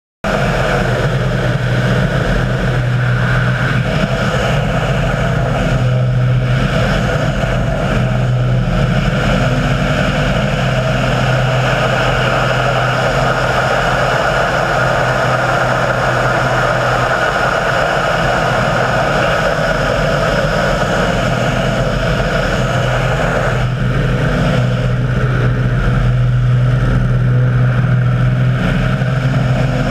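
Model aircraft engine running loudly and steadily, with a low hum and its overtones holding nearly level throughout.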